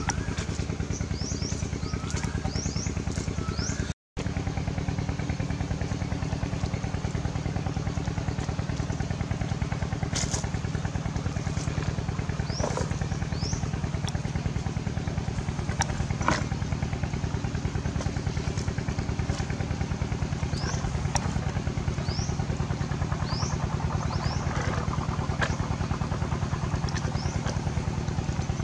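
A steady, engine-like drone with a fast, even pulse runs throughout, cutting out for a moment about four seconds in. Short, high, rising chirps come now and then over it.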